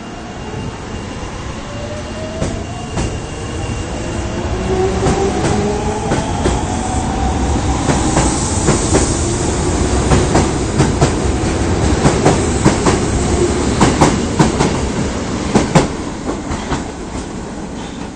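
Osaka Municipal Subway 22 series electric train pulling away. Its traction motors whine in several tones that rise in pitch as it speeds up, while the wheels click over rail joints, more and more sharply. The clicking is loudest about three quarters of the way through and falls off near the end.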